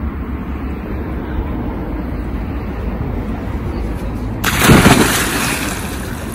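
A man jumping from a boat into a river: one big splash as he hits the water about four and a half seconds in, dying away over a second or so, over a steady low rumble.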